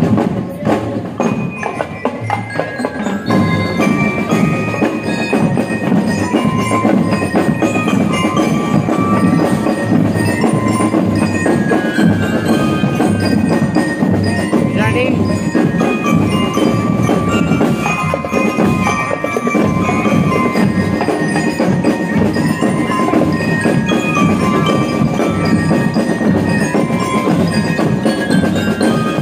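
Marching band of bell lyres and drums playing. The bell lyres ring a bright glockenspiel melody of short notes over a steady drum beat.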